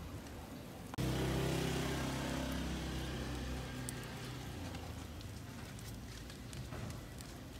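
A motor vehicle engine running close by, starting suddenly about a second in and fading over the next few seconds, over steady street traffic noise.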